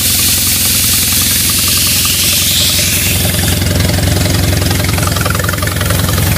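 Smith Gordon Model A air compressor running with a steady, evenly pulsing mechanical note. A high air hiss fades away about halfway through as the low running note grows stronger.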